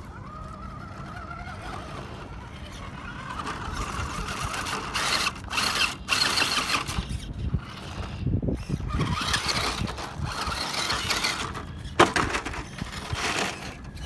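Axial Deadbolt RC rock crawler's electric motor and geartrain whining as it climbs over rocks, then its tyres scrabbling and crunching on gravel and stone in bursts. A sharp knock comes about 12 seconds in as the truck tips over onto its side.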